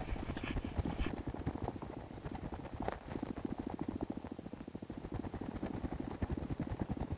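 Footsteps on a wet lane and jacket rustling, close on a body-worn camera's microphone, as a quick, rhythmic scuffing and rustling.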